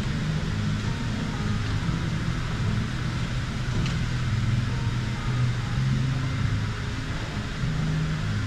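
Steady airport-terminal ambience: a continuous low hum and rumble of ventilation and building machinery, with no distinct events.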